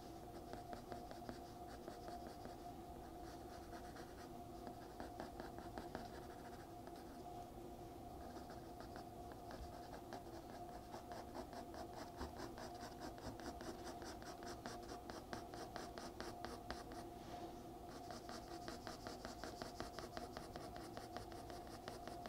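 Graphite pencil scratching on paper in rapid short hatching strokes, shading fur, over a faint steady hum.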